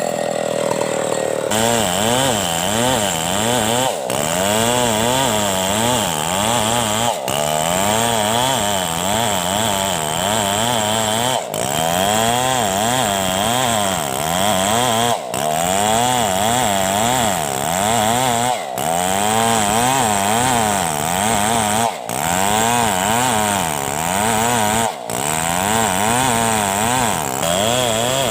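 Two-stroke chainsaw cutting through a fallen coconut palm trunk. It runs at a lower, steady speed for the first second or so, then works under load with its engine pitch wavering up and down about once a second, broken by brief sudden dips every three or four seconds.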